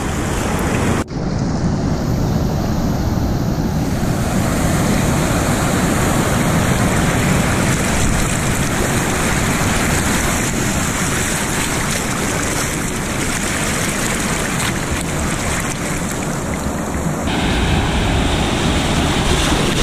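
Ocean surf rushing and breaking around a wading angler, a steady loud wash of water with wind buffeting the microphone. The sound changes abruptly twice, about a second in and near the end.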